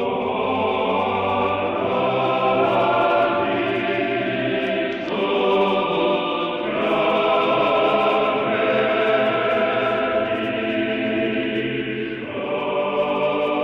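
Choir singing slow, sustained chords, sacred choral chant, with the harmony shifting every few seconds.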